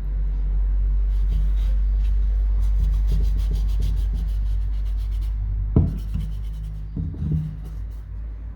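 Scraping and rubbing sounds of hand work, with a sharp knock a little before six seconds in and a few more scrapes after it, over a steady low hum.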